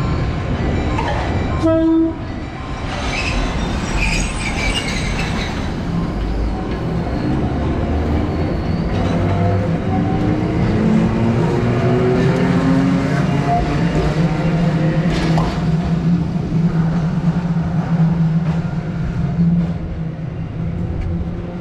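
Keifuku Electric Railroad (Randen) tram on the move: a short horn note about two seconds in, then a high squeal from the wheels. Its traction motors then whine, rising in pitch as the tram speeds up, and settle into a steady low hum.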